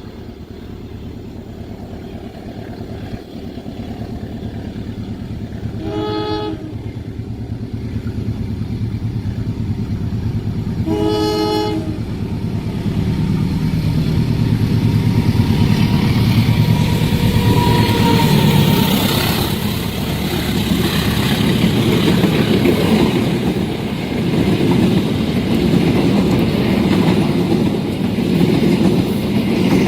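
A train approaching a level crossing, sounding its locomotive horn twice: a short blast about six seconds in and a longer one about eleven seconds in. It then passes close with the loud rush and rattle of wheels on the rails.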